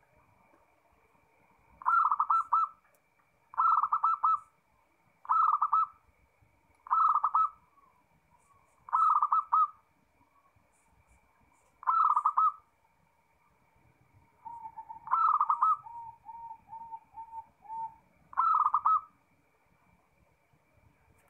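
Zebra dove (perkutut) cooing: eight short, bubbling phrases of several quick notes each, spaced about one and a half to three seconds apart. A quicker run of softer, lower notes comes in the last third.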